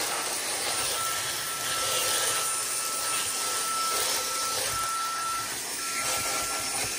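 Handheld vacuum cleaner with a crevice nozzle running steadily: an even rushing hiss with a steady high whine from its motor, which drops out for a moment twice.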